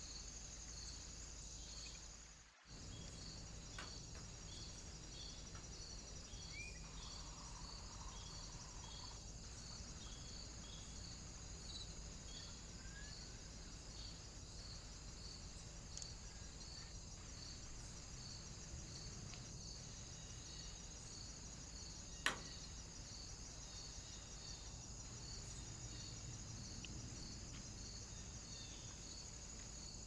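Faint steady chirring of insects such as crickets, pulsing about twice a second, with a couple of faint bird chirps. The sound drops out briefly about two and a half seconds in, and there is a single click later on.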